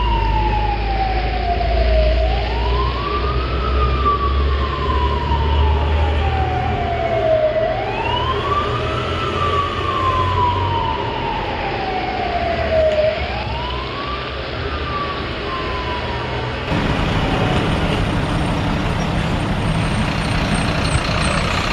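A fire engine siren wailing, each cycle rising quickly and then falling slowly over about four seconds, three times over, above a low engine rumble. The siren cuts off suddenly about three-quarters of the way through, leaving a steady noisy background.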